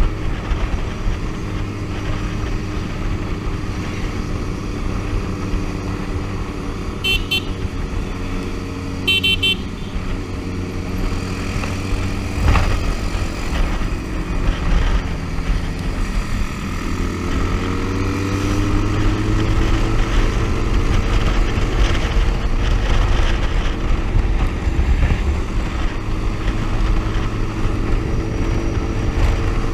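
Motorcycle engine running at highway cruising speed under wind and road rush. About two-thirds of the way through it pulls harder and its note rises as the bike speeds up. Two short high toots come about a quarter of the way in, and a single sharp knock follows a few seconds later.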